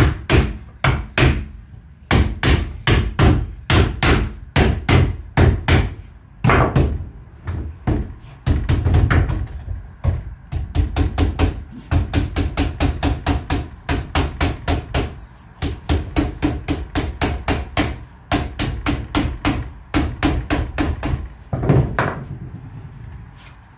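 Rubber mallet repeatedly striking a strip of lead flashing clamped between timber battens, bending its edge over: dull, quick blows at about three to four a second, in runs with short pauses.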